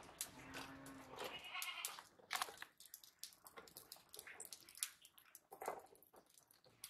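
Light taps and rustles of small wet fish being picked over by hand on a woven bamboo tray, as scattered short clicks. A brief animal bleat sounds in the first two seconds.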